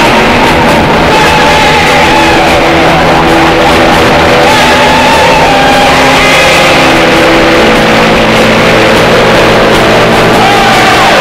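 Live rock band playing loudly, with held notes throughout.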